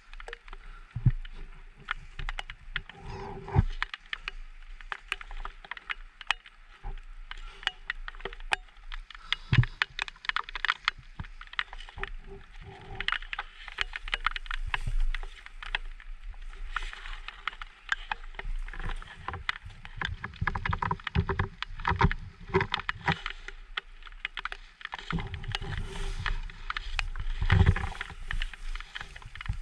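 Tall grass rustling and brushing against the microphone, with many irregular crackles and clicks, and heavy low rumbles in the second half.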